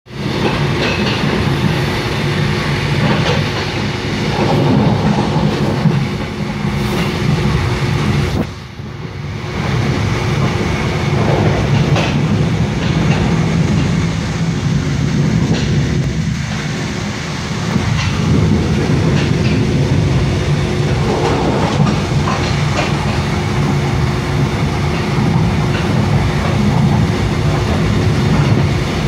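Mugunghwa-ho passenger train running, heard from inside the coach: a steady rumble of wheels on rail with occasional clicks over rail joints. The noise drops briefly about a third of the way in.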